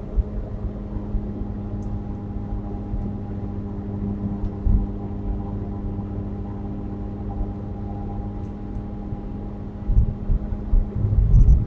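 Steady in-cabin drive noise of a 2016 Nissan Versa at highway speed: a constant drone from its 1.6-litre four-cylinder engine over low tyre and road rumble. A few louder low bumps come near the end.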